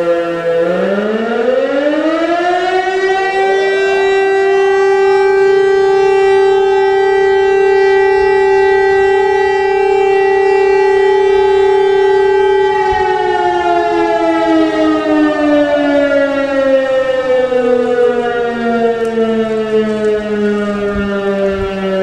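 Fire brigade alert siren sounding the call-out alarm. Its howl rises over about four seconds to a steady high tone, holds it for about eight seconds, then slides back down to a low tone in the second half.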